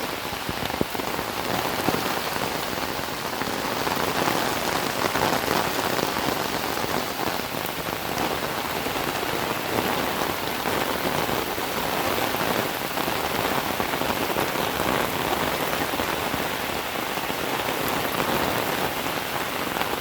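Steady rain falling and pattering on a surface, a dense even hiss of many drops.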